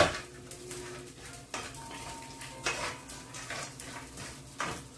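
Wooden spatula stirring dried anchovies and nuts in a frying pan: a knock against the pan at the start, then a few scattered scrapes and clicks.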